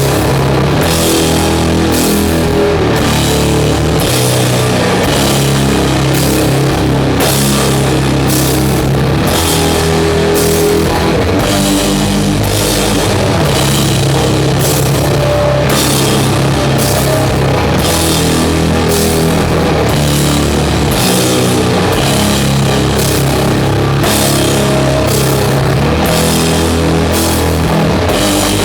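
Doom metal band playing live: heavily distorted guitars and bass hold long, low notes over a slow, steady drum beat with cymbal hits about one and a half times a second.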